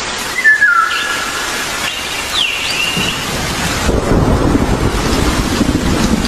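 Outdoor nature ambience: a steady rain-like hiss with a few short whistled bird calls in the first half, then a low rumble that comes in about four seconds in.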